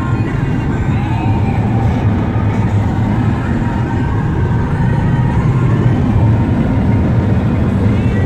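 Steady road and engine noise of a vehicle cruising at highway speed.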